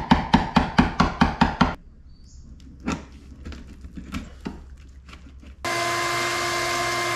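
A hammer rapidly taps a chisel into the wooden cabin side, about five blows a second for under two seconds, cleaning out a routed pocket for a Dutchman patch. Quieter hand paring with the chisel follows. About five and a half seconds in, a shop vacuum runs steadily.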